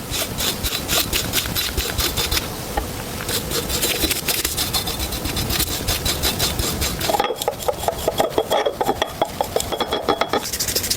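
Hand abrasion of a restored gun part: quick, repeated back-and-forth rubbing strokes of a file or abrasive against the piece. About seven seconds in, the strokes turn lower and duller for a few seconds, then the sharper, higher strokes return near the end.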